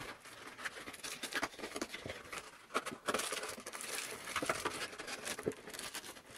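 Cardboard trading-card display box being slid out of its sleeve and folded into shape: a run of small scrapes, taps and crinkles of card.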